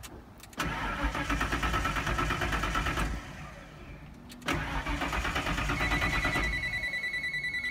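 Ford F-series pickup's starter motor cranking the engine in two bursts of a few seconds each, with a short pause between them. The engine does not catch to an idle. A steady high-pitched warning tone comes in partway through the second crank.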